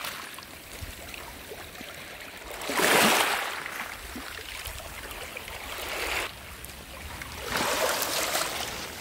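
Small sea waves washing in and out over wet pebbles and seaweed at the shoreline, three washes, the first about three seconds in the loudest.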